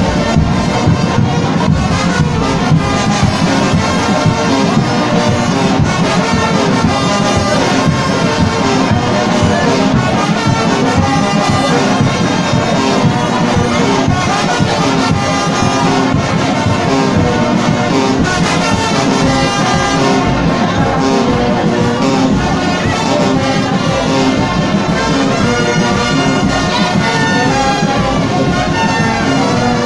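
Kimbanguist church brass band (fanfare) playing a parade 'animation' piece: massed brass over a steady beat.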